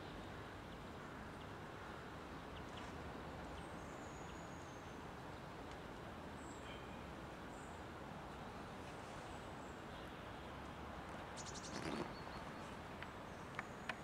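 Steady, faint outdoor background noise with a few short, high bird chirps; the siren is silent. About two seconds before the end there is a brief louder rustle, and near the end a couple of sharp clicks.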